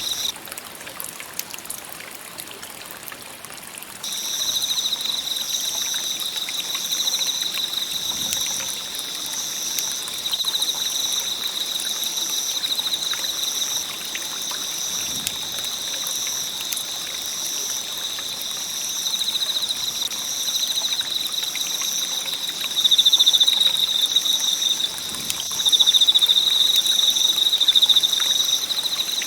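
Campfire burning with a steady fine crackle, under a high, continuous pulsing trill from a night chorus of calling animals. The trill stops for a few seconds near the start, then returns and gets louder in the last few seconds.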